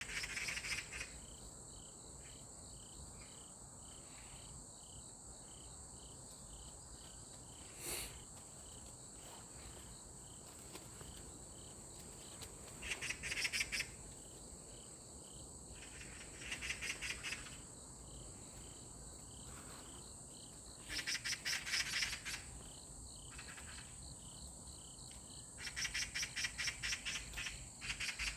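Insects calling, likely crickets: a steady high trill runs throughout, with louder bouts of rapid pulsed chirping lasting about a second, recurring every few seconds. A single sharp click comes about eight seconds in.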